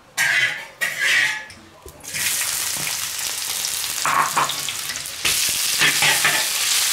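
Potatoes being stir-fried in hot oil in a large wok: two short harsh bursts in the first second and a half, then steady sizzling from about two seconds in that grows a little louder after about five seconds as the food is turned.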